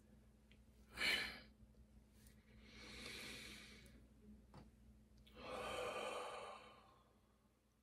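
A man breathing audibly: a quick sharp breath about a second in, then two long sighing breaths, the second louder and with a little voice in it.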